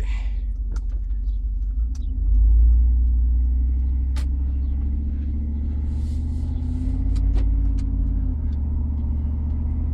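2000 Dodge Durango's 5.9-litre V8 with Hooker headers and Aero Chamber exhaust, heard from inside the cab as the vehicle pulls away and accelerates. Its low engine note swells about two and a half seconds in, again around seven seconds, then eases off near the end.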